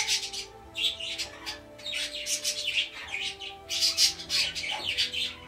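Pet parrots in a bird room chirping and squawking, many short, sharp calls coming close together.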